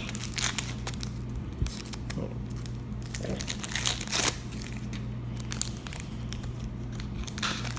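Foil Pokémon TCG booster pack wrapper crinkling as it is handled, in several short crackles, the loudest a little past halfway.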